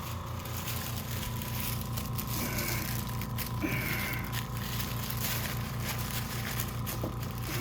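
Crinkly paper face-rest sheet rustling and crackling as it is wrapped around a patient's foot, in an uneven run of crackles over a steady low hum.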